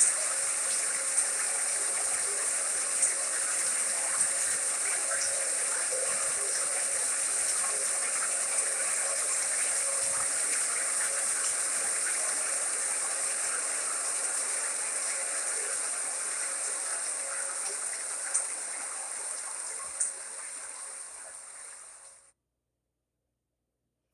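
White noise machine playing a steady, water-like rushing noise, with a few faint clicks over it. It fades out near the end and gives way to silence.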